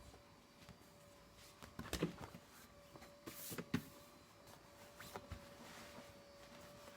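Doctor Air 3D massage seat running with a faint steady hum, and several sharp clicks and knocks from its mechanism; this is the abnormal noise the seat is making.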